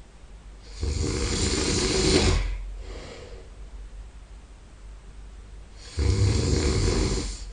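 A sleeping man snoring: two loud, rattling snores about five seconds apart, each lasting about a second and a half, with a softer breath between them.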